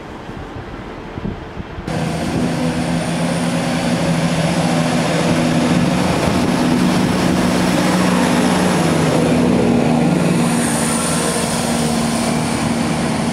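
First TransPennine Express diesel multiple unit's underfloor engines running under power as the train pulls away from the platform, a steady low drone that builds slightly then eases. Wind noise on the microphone comes before it starts, about two seconds in.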